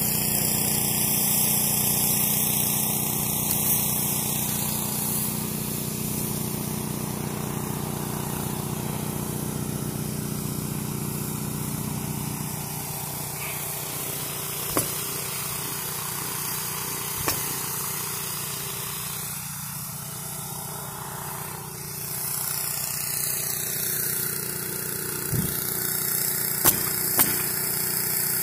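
A motor drones steadily, with a few sharp shots from a pneumatic roofing nailer spaced seconds apart, coming closer together near the end.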